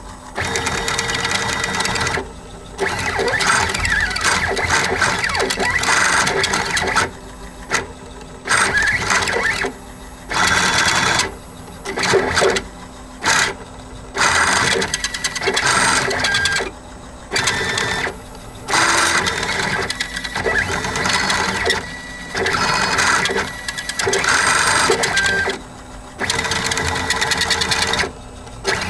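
Homemade CNC machine's stepper motors, salvaged from 5-inch floppy drives and run at 30 V at their top speed, buzzing and whining as they turn the threaded-rod lead screws to trace letters. The sound comes in runs of one to three seconds broken by brief pauses between moves.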